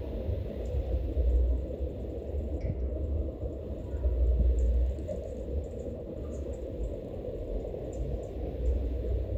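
Low outdoor rumble that swells and eases every couple of seconds, with faint scattered high ticks over it.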